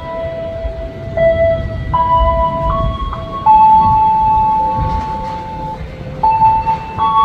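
A slow electronic melody of held single notes stepping from pitch to pitch, played over the station loudspeakers, over a low rumble from the approaching train.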